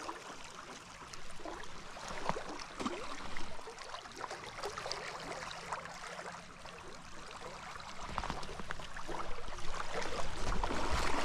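River water running and splashing, with small scattered spatters, and a low rumble that builds over the last few seconds.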